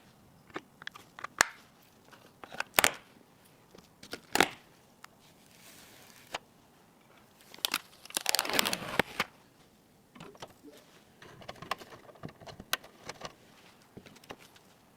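Handling sounds of PC parts being unboxed and fitted: scattered sharp clicks and taps, with a burst of crinkling packaging about eight seconds in.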